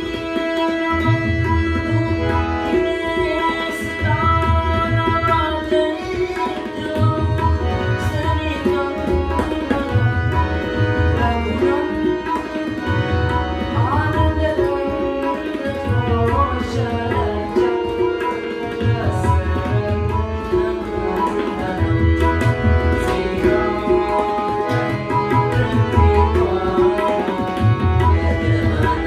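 Tabla and harmonium playing a devotional bhajan: sustained harmonium chords under crisp tabla strokes, with the bass drum's deep resonant strokes recurring in a steady cycle. A male voice sings in places, most clearly around the middle.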